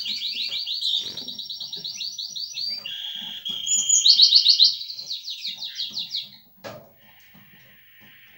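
Male Eurasian siskin singing a fast series of rolling trills and one held whistled note, loudest about four seconds in, stopping a little after six seconds; a single faint click follows.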